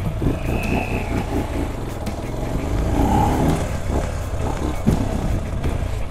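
Formula LX200's 200 cc single-cylinder, air-cooled pushrod engine running as the motorcycle rides over a dirt track.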